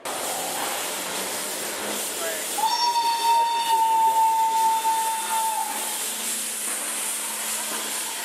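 Steam locomotive 314.303 blowing its whistle in one long, steady blast of about three seconds, starting nearly three seconds in, over a steady hiss of venting steam.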